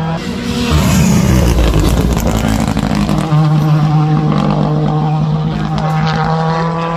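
Rally car engine running under load as the car drives through a bend. Its note swells about a second in and then holds a steady pitch.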